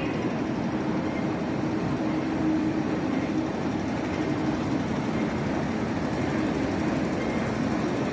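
Steady ambient noise of an underground MTR station concourse: an even rumble and hum with no distinct events.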